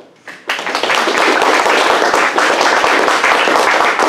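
Audience applauding: a couple of single claps, then dense, steady clapping from about half a second in.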